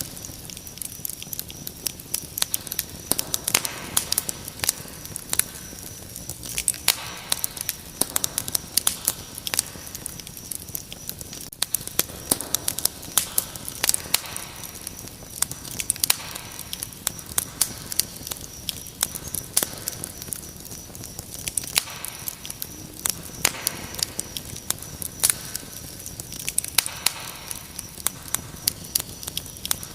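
Wood fire crackling with frequent sharp pops and snaps, over a steady high-pitched cricket chirping.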